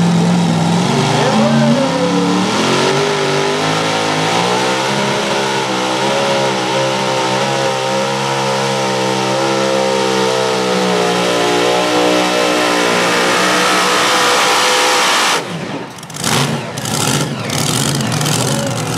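Mini modified pulling tractor's engine revving up as it launches with the sled, then running flat out at high revs down the track. About 15 seconds in it cuts off sharply at the end of the pull, followed by a few sputters as it drops back toward idle.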